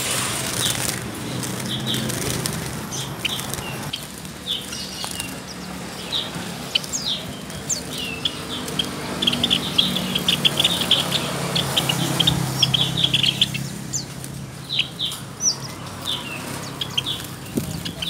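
Caged Java sparrows fluttering their wings and calling with short, sharp chirps, the chirps coming in a quick dense run around the middle. A low steady hum sits under them.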